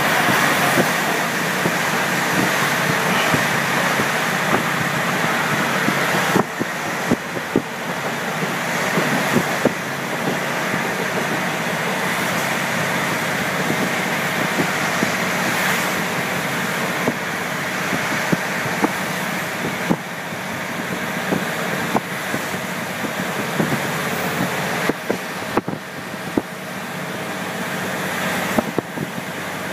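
KiHa 48 diesel railcar running along the line: a steady drone of engine and wheels on rail, dotted with short clicks and knocks from the running gear from about six seconds in.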